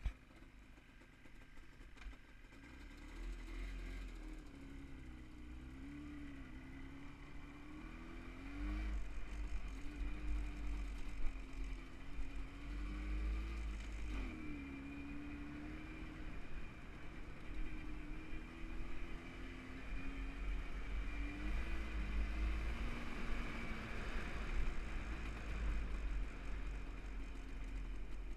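Jawa 638 two-stroke twin motorcycle engine pulling away and being ridden, its note rising and dropping several times through the gears. Heavy wind buffets the microphone underneath.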